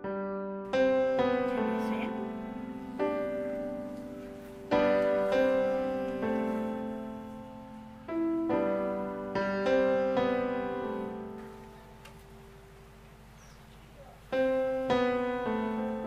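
Slow, gentle piano music: chords struck every couple of seconds and left to ring and fade, with a lull of a few seconds before a last chord near the end.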